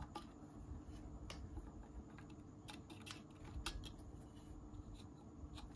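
Faint, scattered light clicks of small metal engine parts being handled as the oil pump's pin is fitted and turned by hand into its slot in an aluminium scooter crankcase, over a faint steady hum.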